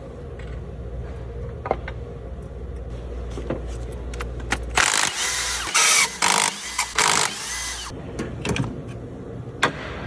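Workshop tool sounds on an engine being taken apart: scattered metal clinks over a steady low hum, then about halfway through a loud power tool runs in several short bursts for about three seconds.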